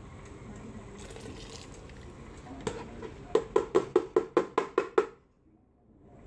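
Plastic bowl rapped against the rim of a stainless steel pot about nine times in quick succession, about five knocks a second, to knock out the last coriander seeds.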